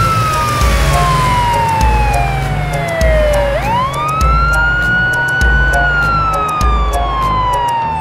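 Cartoon police-siren effect: a single wailing tone slides slowly down, sweeps quickly back up about three and a half seconds in, holds, then slides down again. It plays over background music with a steady bass beat and ticking percussion.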